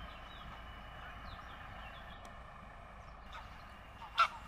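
Small birds chirping over a steady low outdoor rumble, with one short, loud, sharp call near the end.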